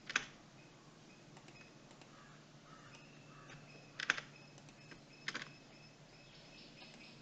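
A few sharp computer mouse and keyboard clicks while text is copied and pasted: one just after the start, a quick pair about four seconds in, and a short cluster about a second later, over a faint steady hum.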